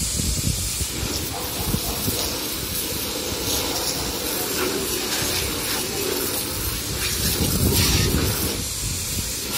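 High-pressure washer spraying water in a steady hiss.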